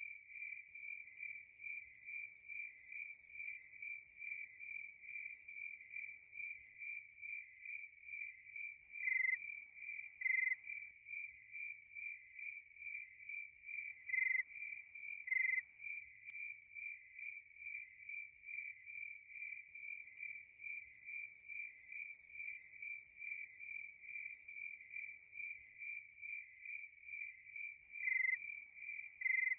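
Crickets chirping steadily, about two chirps a second. A higher pulsing hiss comes in twice for a few seconds, and short sharp calls sound in pairs three times.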